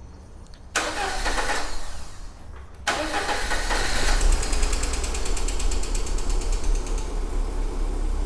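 Car petrol engine being started after an oil pickup screen replacement and fresh oil: a first start burst about a second in that dies away after about a second, then a second start about three seconds in that catches and keeps running steadily. It runs without hydraulic lifter tapping, the lifters now getting oil.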